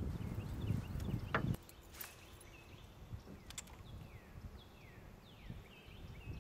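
A low rumble with a couple of sharp clicks that cuts off suddenly about a second and a half in, leaving quieter background where birds call with repeated short falling chirps, interrupted by a sharp click or two.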